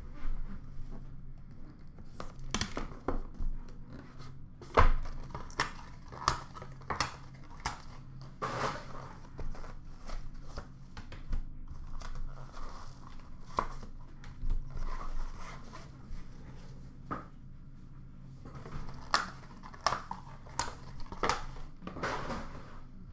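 Trading cards and their packaging being handled by hand: tearing and crinkling of wrapping, with many sharp clicks and taps as cards and plastic card holders are picked up and set down, one louder knock about five seconds in. A faint steady low hum runs underneath.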